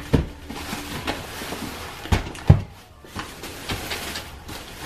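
Grocery items being handled and set down on a surface: a few sharp knocks, the loudest about two and a half seconds in, with quieter handling noise between.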